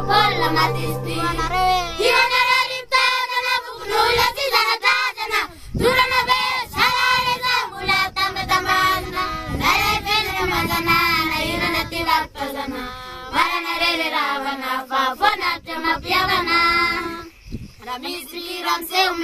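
Several children singing together. A held background drone stops about three seconds in, and the voices carry on unaccompanied.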